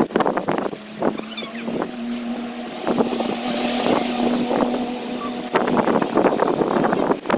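A car driving past, its engine a steady hum for about four seconds. Children's voices come back near the end.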